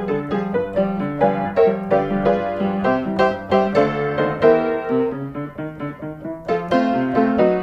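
Background music: a keyboard tune with a piano sound, played as a steady stream of short notes over a lower accompaniment.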